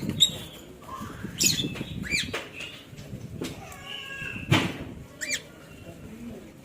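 Young hand-raised budgerigar calling in short, sweeping chirps several times, with one longer held call about four seconds in. A sharp knock comes just after that call.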